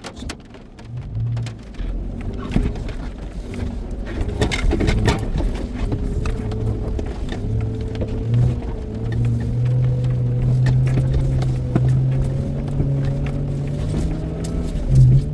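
Toyota off-road truck's engine running hard under load as it crawls an obstacle with its locker engaged, the engine's pitch climbing slowly through the second half. Scattered knocks and clicks come in the first half.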